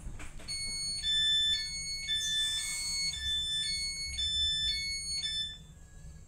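Electronic two-tone warning beeps inside a Stadler FLIRT electric train, alternating high and low about twice a second, typical of the door-closing warning. A short hiss about halfway through, over a steady low rumble of the train.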